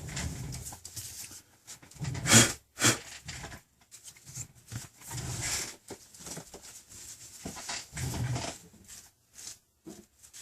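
A plastic pry tool rubbing and scraping against a tablet's frame and screen adhesive in short, irregular strokes, the sharpest scrapes about two and three seconds in.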